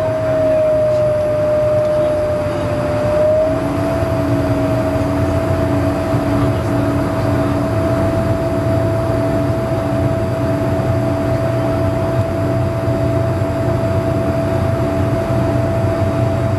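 Cabin noise of a BAe Avro RJ100 airliner in descent: the steady rush of its four Honeywell LF507 turbofan engines with a strong, steady whine. The whine dips a little, then rises slightly in pitch about three and a half seconds in, over a low pulsing beat.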